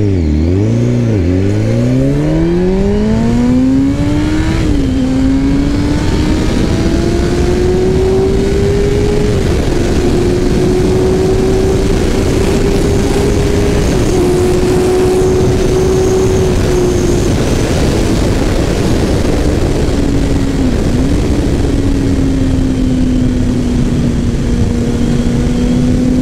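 Kawasaki ZX-10R's inline-four engine launching hard from a standstill, the revs climbing fast and dropping sharply at each quick upshift, several in the first ten seconds. It then pulls on at high speed with a few more gear changes, the pitch easing down near the end, over a dense rushing noise.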